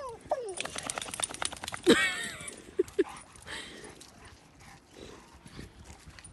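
Dog whining excitedly: a falling whine at the start, a loud high whine about two seconds in, then two short yips a second later. A quick run of sharp clicks comes between the first two calls.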